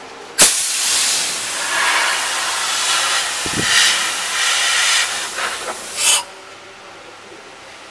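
Compressed air hissing in one long blast that starts suddenly, runs for about six seconds with a short louder surge at the end, and cuts off abruptly.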